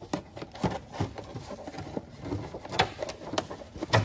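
Irregular clicks, knocks and rustles of a cut-open plastic oil bottle being worked into place by gloved hands beneath an aircraft engine's spin-on oil filter.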